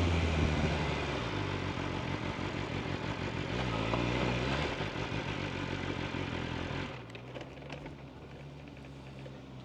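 Inline-four sport motorcycle engine running down as the bike slows, with a brief rise and fall in revs midway, then dropping to a steady idle about seven seconds in.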